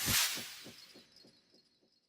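A short whoosh-like edit sound effect that swells and fades within about a second, with a rapid fluttering pulse and a faint high ring.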